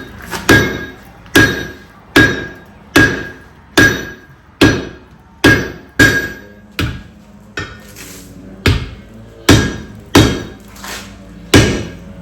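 Hand hammer striking hot steel worked over a blacksmith's cone mandrel, in an even rhythm of a little more than one blow a second, each with a short metallic ring.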